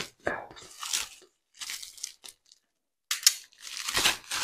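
Plastic bubble-wrap packaging being torn open and crinkled by hand, in irregular rustling bursts. There is a short pause around the middle, and the loudest tearing comes near the end.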